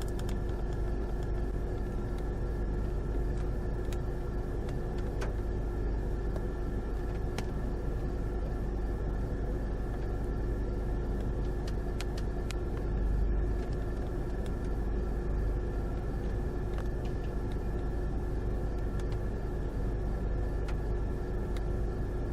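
Steady vehicle road and engine noise, heard as if from inside a moving car: a constant low rumble with a steady hum over it and a few faint clicks.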